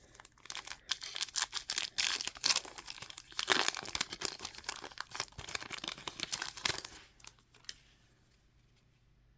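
A sticker pack's wrapper being torn open and crinkled by hand, a dense crackle for about seven seconds that fades out near the end.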